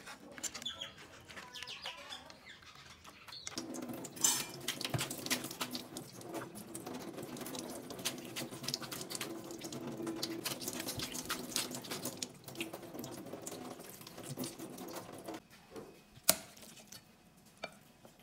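Wonton skins being stirred in a pan of hot water with a utensil: a busy stretch of small clicks, scrapes and bubbling from about three and a half seconds in until about fifteen seconds, then one sharp knock against the pan about sixteen seconds in.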